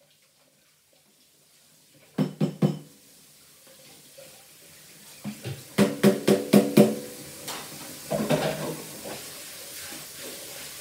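Sharp ringing taps or clinks: a quick run of three about two seconds in, then a faster run of about six, with a faint hiss between.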